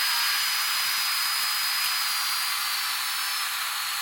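Steady hiss of air being drawn through a vacuum oil-drain setup (vacuum regulator on a shop vacuum), with a thin high whistle that slowly drops in pitch.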